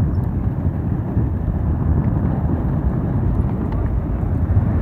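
Honda XR motorcycle being ridden, its running engine buried in a heavy, steady wind rumble on the microphone.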